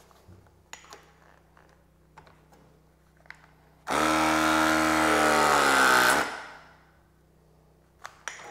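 Cordless RLS press tool running a press cycle to crimp a press coupling onto a copper refrigerant line: its motor runs for about two seconds, its pitch dropping steadily, then winds down. A few faint handling clicks come before it.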